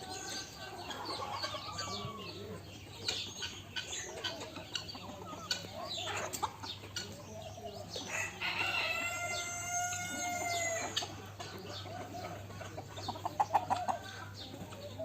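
Chickens clucking, and about eight and a half seconds in a rooster crows once, a long call lasting about two and a half seconds.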